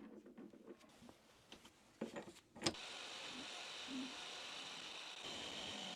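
A few faint knocks and clicks of handling, then a switch clicks about two and a half seconds in and a workshop machine's electric motor starts, running with a steady hum.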